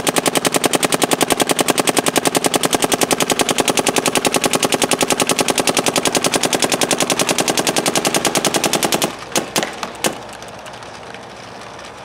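Dye M3+ electronic paintball marker firing a rapid, even string of shots for about nine seconds, then a few single shots before it stops. It is feeding very undersized paint with no ball breaks.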